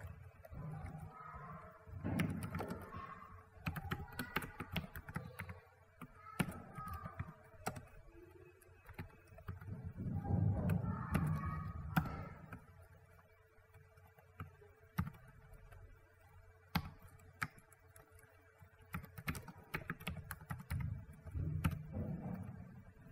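Typing on a computer keyboard: irregular key clicks as code is typed, with a few louder low sounds lasting a second or two, about two seconds in, around ten seconds and near the end.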